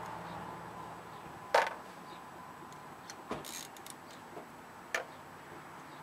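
A few sharp metallic clicks and clinks of hand tools and small parts being handled at a small engine's valve cover, the loudest about one and a half seconds in, over a faint steady background hiss.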